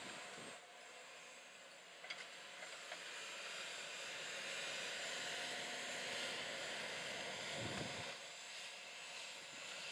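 New Holland T8.390 Genesis tractor running under load as it pulls a 24-row Kinze 3700 corn planter through the field: a steady mechanical drone with hiss, swelling from about three seconds in. Two brief low rumbles come about half a second and nearly eight seconds in.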